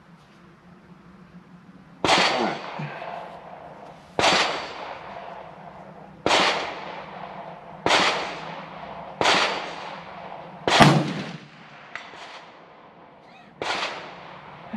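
Rifle shots on a shooting range: seven sharp cracks, one every one and a half to two seconds, each with a short echoing tail, the sixth the loudest.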